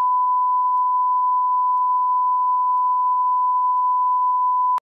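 1 kHz reference test tone of a colour-bars-and-tone leader: one steady, pure beep at a constant level that cuts off suddenly near the end.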